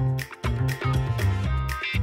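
Background music with a steady beat of about four drum hits a second over a bass line and pitched instrument notes.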